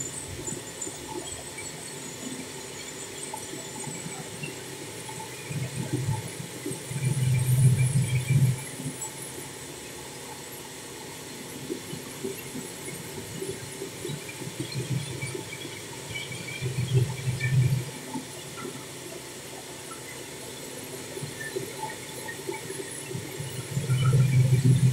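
Vertical steam engine running: a steady mechanical hum with hissing, with louder low sounds swelling up a few times for a second or two.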